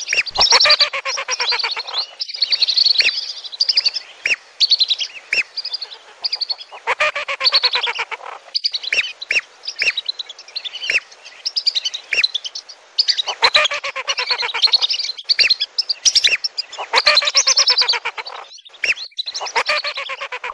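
A flock of whistling ducks giving many overlapping high, whistled calls in bursts of a second or two, with short pauses between the bursts. This is the kind of recording played as a lure to call the ducks in.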